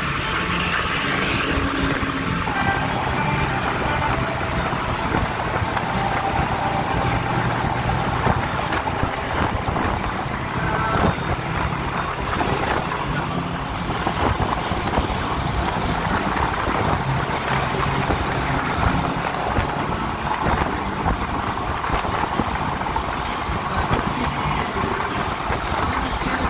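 Steady road noise inside a car cruising at freeway speed: tyre and wind noise with a low engine hum underneath.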